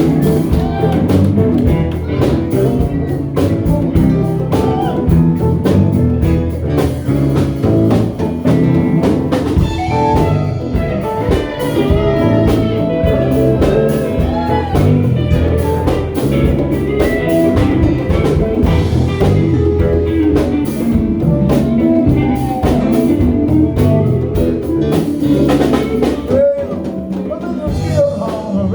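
A ragtime band playing a blues-tinged tune, with guitar and drums audible.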